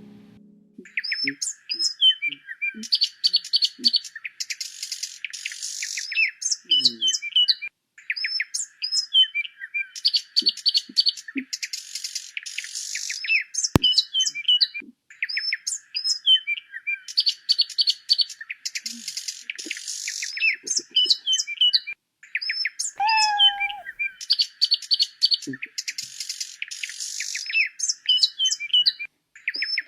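Bird chirping and twittering in quick trills and short gliding notes. The same phrase repeats about every seven seconds, like a looped recording.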